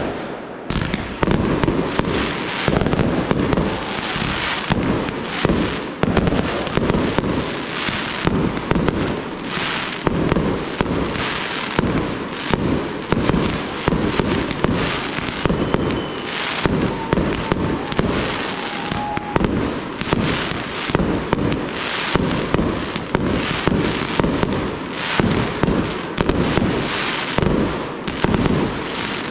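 Fireworks display: aerial shells launching and bursting in a rapid, unbroken barrage of bangs.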